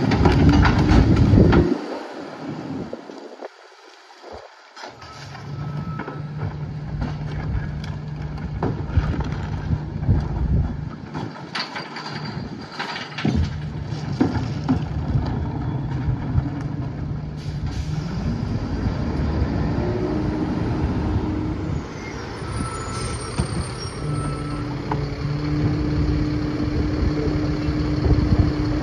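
Freightliner M2 rear-loader garbage truck's diesel engine running, with scattered sharp knocks and clanks. A higher steady hum joins in near the end.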